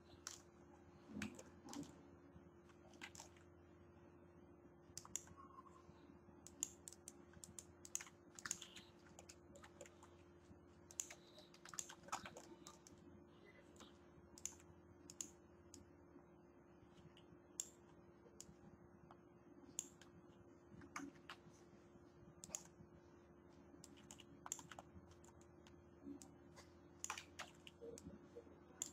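Faint, irregular clicks of a computer keyboard and mouse being worked, over a steady low hum.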